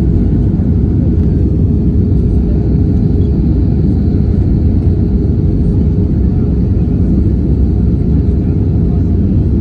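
Steady low rumble of an airliner's engines and rushing air during descent, with a constant droning hum running through it.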